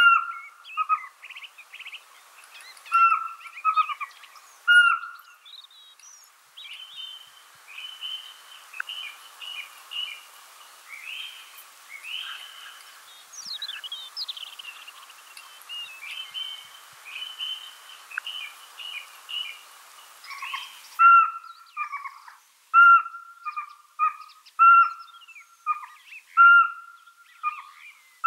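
Small owl calling with short whistled notes. In the middle there is a long run of higher, quicker twittering notes. In the last several seconds the whistles come louder and regularly, about one a second.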